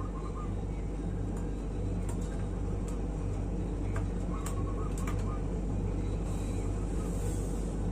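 Steady low rumble throughout, with a zebra dove (perkutut) giving short faint cooing phrases at the start and again about four and a half seconds in. A few scattered faint clicks.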